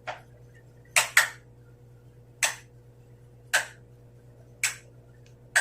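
About seven short, sharp swishes, with a quick pair about a second in and then roughly one a second, from a cloth signal flag being handled and shaken out.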